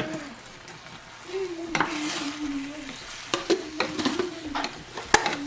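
A spoon stirring and scraping through beans and rice frying in a pan, with a sizzle and several sharp clicks of the spoon against the pan, the loudest a little before the end.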